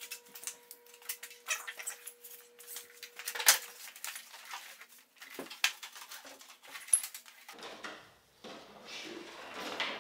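Handling noises from a padded tailgate pad being worked over a pickup's tailgate: rustling, scraping and light knocks, with one sharper knock about three and a half seconds in and a longer stretch of rubbing near the end.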